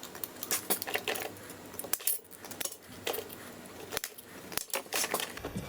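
Small metal plates and rivets clinking and tapping as they are handled and laid in place, a scatter of irregular light metallic clicks.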